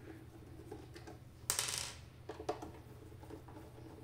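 A small metal screw clattering onto a tabletop about one and a half seconds in, followed by a few light clicks of hands and a screwdriver working on a plastic equipment case.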